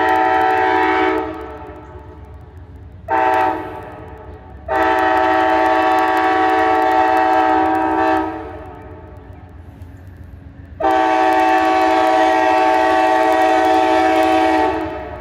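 Amtrak P42 locomotive's multi-chime air horn sounding as the Northeast Regional comes into Ashland: a long blast ending about a second in, a short blast around three seconds, then two long blasts of three to four seconds each. A low train rumble carries on between the blasts.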